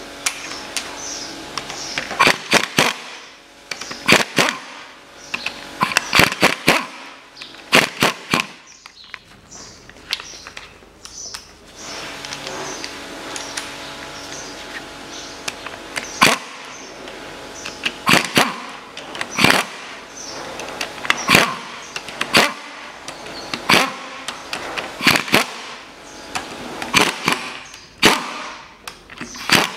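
Socket wrench working the camshaft bearing-cap bolts loose on a Mitsubishi 4B10 cylinder head: short clusters of sharp metal clicks every second or two.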